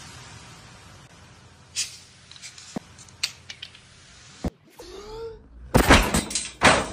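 Corrugated sheet-metal gate kicked, giving a quick run of loud bangs and rattles near the end. Before that there are only a few faint clicks and a sharp tap.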